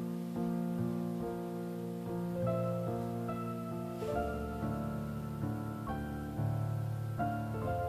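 Slow background piano music, held notes changing every half second to a second.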